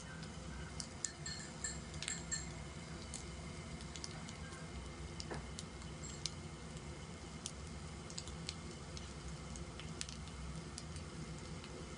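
Scattered light clicks of wooden chopsticks against a plate and the metal grill pan, over a faint steady hum.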